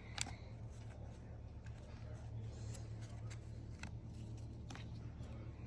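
Trading cards being handled and flipped through: faint rustles with a scattering of short, sharp clicks, the sharpest just after the start, over a steady low hum.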